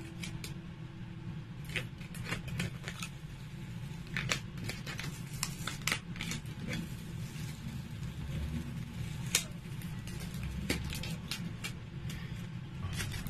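Paper and plastic packaging rustling and crinkling as a parcel is unpacked by hand, with scattered sharp clicks and crackles over a steady low hum.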